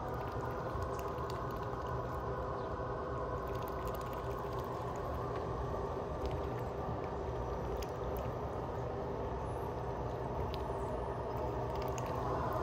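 Steady hum of a running motor, holding several even tones without change.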